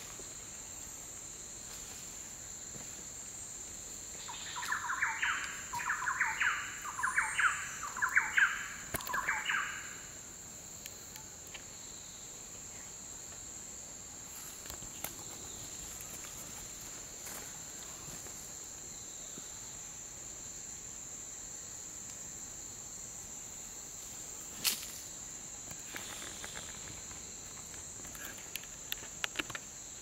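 Steady high-pitched drone of an Amazon rainforest insect chorus. Between about four and ten seconds in, a bird gives six loud calls about a second apart, the loudest sound here.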